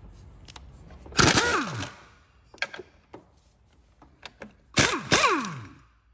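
Pneumatic impact wrench undoing 15 mm engine-mount bolts: a short burst about a second in, then two quick bursts near the end, each time the air motor winding down in pitch as it stops.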